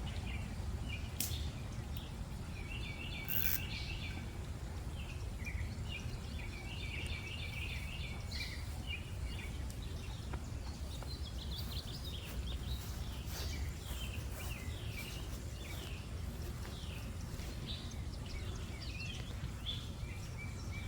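Small birds chirping in short, repeated notes, over a steady low rumble, with a couple of brief clicks near the start.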